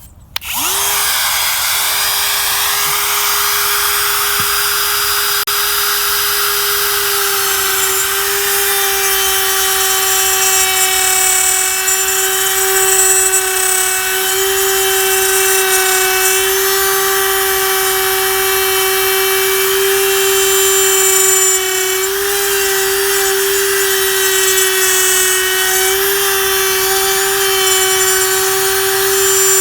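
Ridgid brushless router switching on about half a second in, spinning up and then running steadily with a high whine, its 1/4-inch core box bit routing letters into wood.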